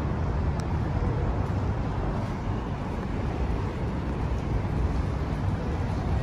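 Steady low rumble of outdoor city street noise.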